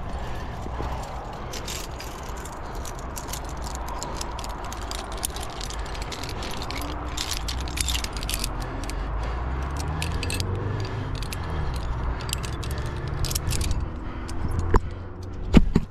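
Climbing rack of carabiners and cams clinking and jingling on the harness as the climber moves, over a steady low rumble. Two sharp, loud clacks near the end.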